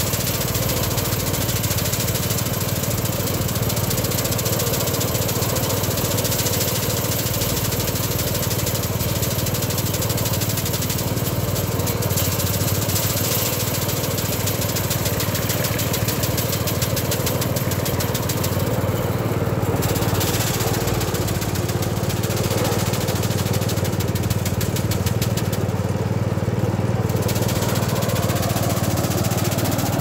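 Small rice thresher running steadily while bundles of harvested rice stalks are fed into its drum: a continuous machine drone with a low hum and a dense hiss over it.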